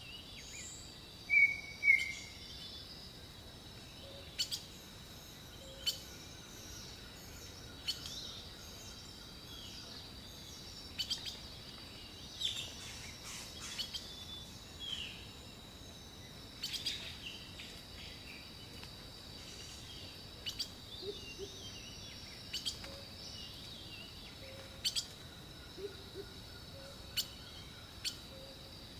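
Small birds chirping and calling at intervals, with two louder calls about a second and a half in, over a steady high-pitched drone and scattered sharp clicks.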